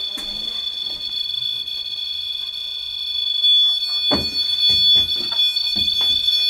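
REM pod's high-pitched electronic alarm tone sounding steadily as the device is triggered, louder a little past halfway. Footsteps thud on wooden stairs over the last few seconds, about two a second.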